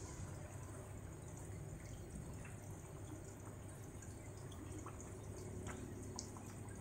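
Battered banana slices frying in hot oil in a pan: a faint steady sizzle with scattered small pops and crackles.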